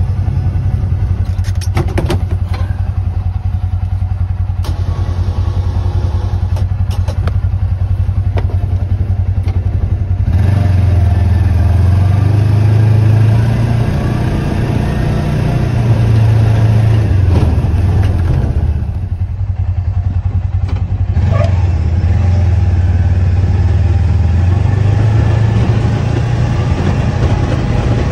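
Kubota Sidekick utility vehicle's engine running steadily as it drives and pushes snow with a front-mounted plow. There are a few sharp clatters in the first several seconds, and the engine gets louder about ten seconds in.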